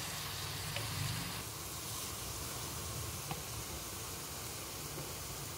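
Vegetables sizzling softly in a pot on a gas stove as soy sauce is poured in: a steady hiss, with a couple of faint light clicks.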